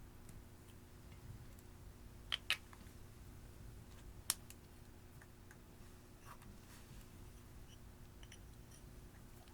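Clear slime being worked by hand, giving a few sharp pops: two close together a little over two seconds in and one at about four seconds, followed by faint small crackles.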